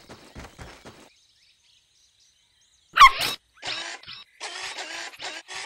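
Quick, light pattering footsteps of a cartoon puppy running, about four a second, stopping about a second in. About three seconds in comes a short, loud bark with a falling pitch, then a string of short buzzing gadget sound effects as a radar antenna pops up from its backpack.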